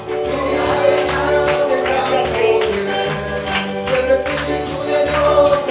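Latin-style worship music with a tambourine keeping the beat over a bass line and held chords.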